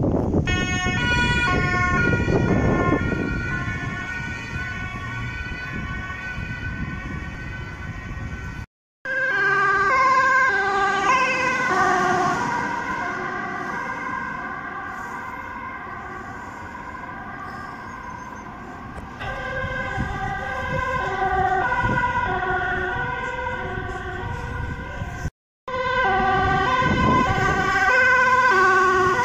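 Dutch ambulance two-tone sirens alternating between a high and a low note, swelling louder as the vehicles pass close and fading as they move off, over the rumble of traffic. The sound cuts out briefly twice.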